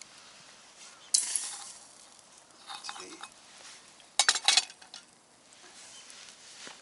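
Metal clinks and scraping at a Trangia billy cooker of boiling ramen noodles. There is a sharp scrape about a second in, then a quick run of clinks just after four seconds.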